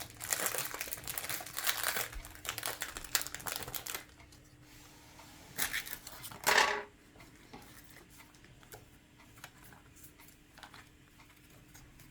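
Foil booster-pack wrapper crinkling and tearing open for about four seconds, then quieter rustling as the cards are handled, with one short louder scrape about six and a half seconds in.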